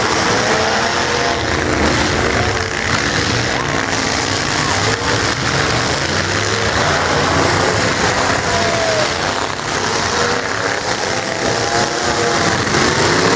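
Several stock pickup trucks' V8 engines revving in a demolition derby heat, each pitch rising and falling as the trucks accelerate, back off and ram each other, over a constant rumble.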